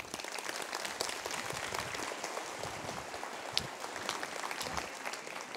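Audience applauding: steady clapping from a large crowd.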